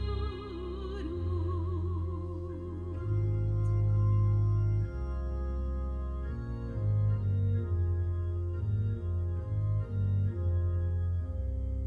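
Organ playing sustained chords over a strong pedal bass line, with the bass notes moving faster in the second half. A soprano's held note with vibrato dies away about two seconds in, leaving the organ alone.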